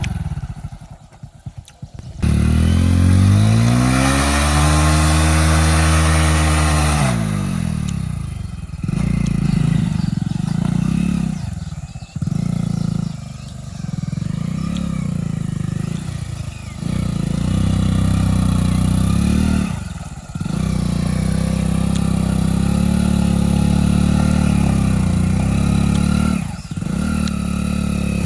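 Hero Splendor motorcycle's single-cylinder four-stroke engine running under load. A few seconds in it revs up and falls back, then it runs steadily with several brief drops as the throttle is eased off and reopened.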